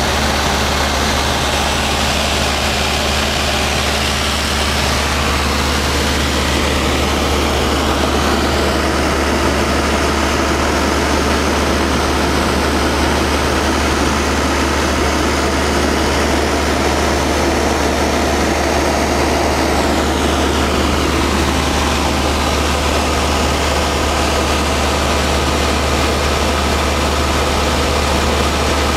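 Luscombe light plane's piston engine and propeller running steadily in flight, a constant low drone with rushing air noise, heard inside the small cockpit.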